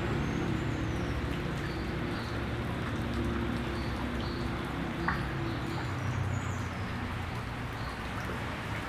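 Steady rain falling into a puddle, drops pattering on the water surface over a low rumble. A few faint high bird chirps, and one sharp drip or click about five seconds in.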